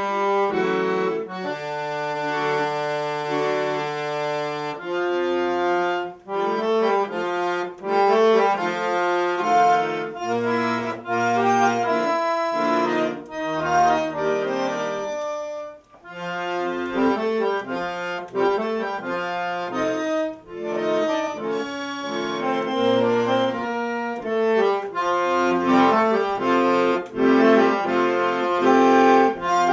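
Accordion playing a piece: a long held chord about a second in, then quicker changing notes over bass notes, with brief breaks about six, sixteen and twenty seconds in.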